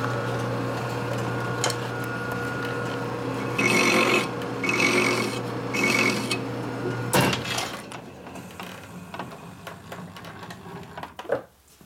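Metal lathe running with a steady hum, broken by three short bursts of fast ticking as the tool cuts the shaft. About seven seconds in there is a clunk and the hum stops.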